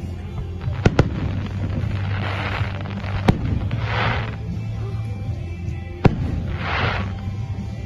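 Fireworks shells bursting: sharp bangs about a second in, around three seconds in and around six seconds in, with hissing, crackling swells from the bursts between them.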